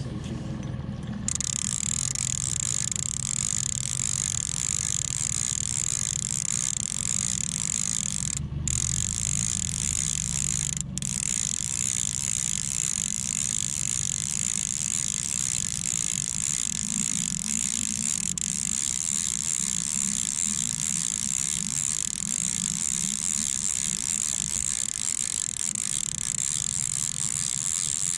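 Fishing reel's click-and-pawl ratchet buzzing steadily as line runs through it, starting about a second in.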